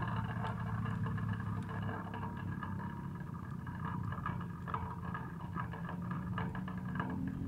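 Wood fire burning in a metal fire pit under a kettle: a steady low rush of flame with scattered small crackles and pops.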